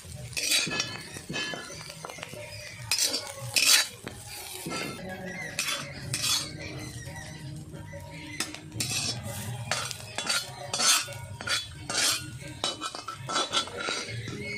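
A metal spatula scrapes and clinks against a black iron kadai and a stainless-steel plate as fried cauliflower and carrot are scooped out of the pan. The scrapes and knocks come irregularly, the loudest a few seconds in.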